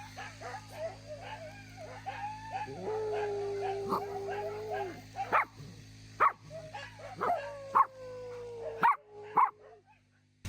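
A dog whining in high, wavering tones, with a long drawn-out whine about three seconds in and another that slowly falls in pitch near the end, broken by a few sharp yelps.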